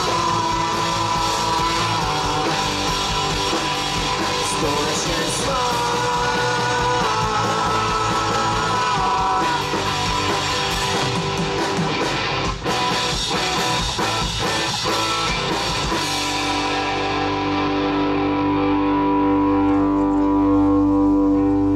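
Live rock band of electric guitar, bass guitar and drum kit playing loudly. About sixteen seconds in, the drums stop and a final held chord rings on to end the song.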